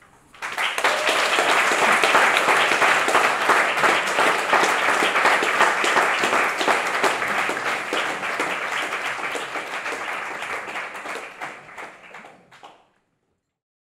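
Audience applauding, many hands clapping at once. It starts about half a second in, slowly thins out over the last few seconds, then cuts off abruptly near the end.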